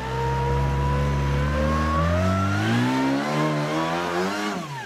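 Rock-crawling buggy's engine revving hard under load on a steep rock climb. It holds a steady high note, rises and wavers in pitch from about two seconds in, then falls sharply near the end.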